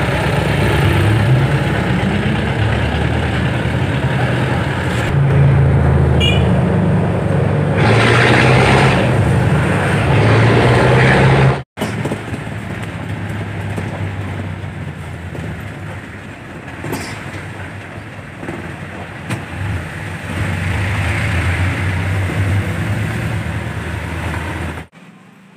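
Passenger jeepney on the move, heard from inside the open cabin: the engine runs with a low drone that shifts in pitch as it speeds up and slows, under a constant rush of road noise. The sound breaks off for an instant near the middle and comes back slightly quieter.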